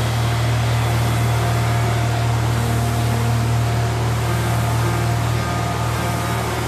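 Steady, loud whirring of fans running, with a strong constant low hum.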